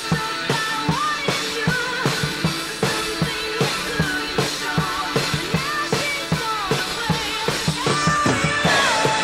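Rock music driven by a drum kit playing a steady beat, about two hits a second on kick and snare, with pitched melodic lines bending over it.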